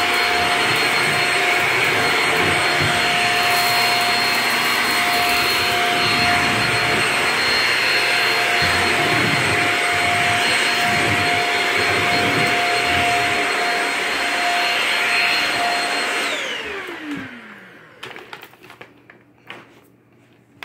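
Shark Rocket DuoClean stick vacuum running steadily with a high whine while sucking up rice from a hardwood floor. About 16 seconds in it is switched off and the motor winds down with a falling whine, followed by a few light handling knocks.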